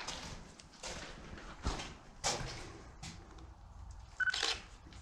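Irregular scuffing footsteps and movement on a gritty tunnel floor, with a short high squeak about four seconds in.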